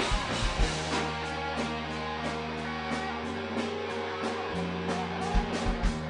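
Live rock band playing an instrumental passage: guitar chords over held low bass notes, with a steady beat of drum and cymbal strokes and a few heavier low drum hits near the end.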